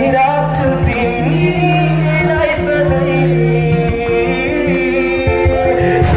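Live band playing a song: a man singing lead over acoustic guitar, electric bass, keyboard and drum kit.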